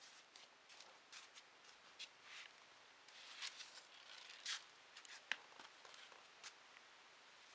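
Faint, scattered rustles and light clicks, with one sharper click about five seconds in.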